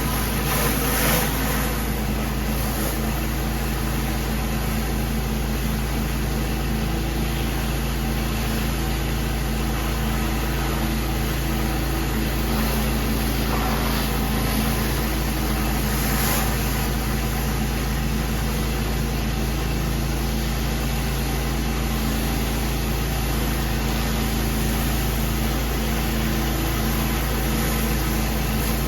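Pressure washer's engine running steadily, with an even hiss above it.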